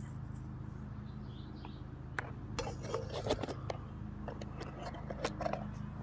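Irregular clicks, rustles and scrapes of footsteps in grass and a handheld camera being moved, starting about two seconds in, over a steady low hum.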